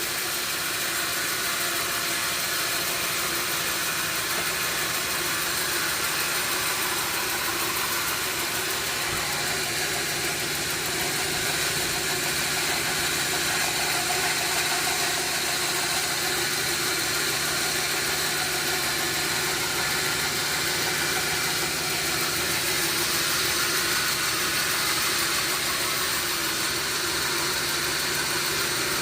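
Sawmill machinery running steadily: a low motor hum under a constant high hiss.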